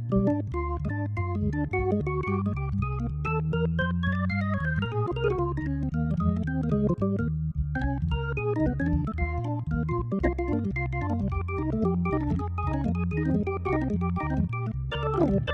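Hammond XK-5 drawbar organ playing jazz: quick right-hand melodic runs over a stepping bass line and chords. The upper line breaks off briefly about halfway, and a fast upward sweep comes near the end.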